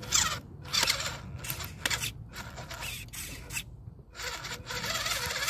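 Radio-controlled scale wrecker truck's electric drivetrain whirring in short, stop-start bursts as its tyres churn in wet mud, with brief silences between throttle pulls.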